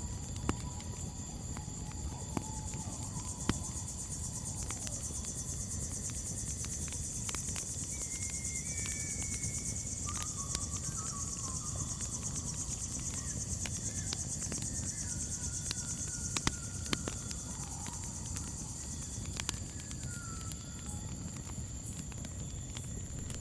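Crickets chirring in a steady, high, unbroken trill over the low rumble of a campfire, with scattered sharp crackles and pops from the fire. A few faint, short whistled bird calls come in and out.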